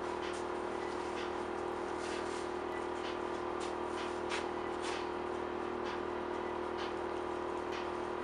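A steady machine hum with one strong low tone, constant throughout, with irregular short scratchy rustles from hands working fibreglass mat on the bench.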